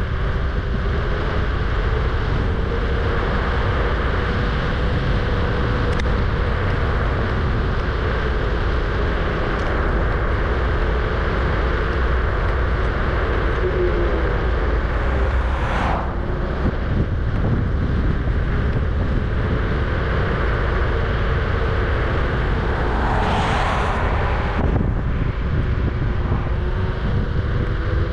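Kugoo G-Booster electric scooter on the move: steady wind and road rumble with a wavering electric-motor whine. Two brief louder whooshes come through, one a little past halfway and one near the end.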